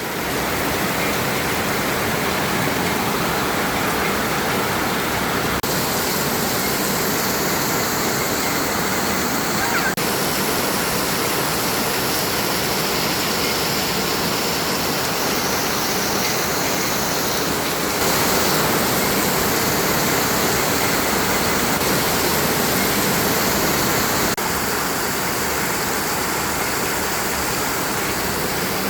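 Heavy rain pouring down: a dense, steady hiss of a tropical downpour, stepping a little louder and quieter a few times.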